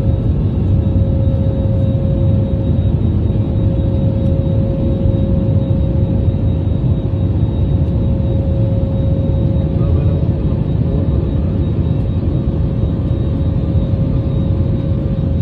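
Steady cabin noise inside a jet airliner in flight: a low engine and airflow rumble with a constant mid-pitched hum over it.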